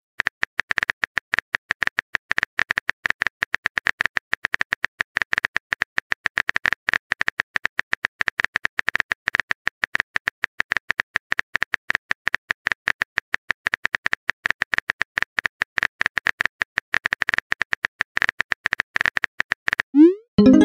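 Rapid run of keyboard tap clicks from a texting-story app as a message is typed out. Near the end, a short rising tone as the message is sent.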